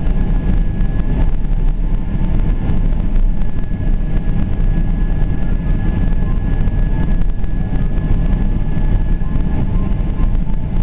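Steady airliner cabin noise on the descent to land: the engines running as a low rumble, with a faint high whine held over it.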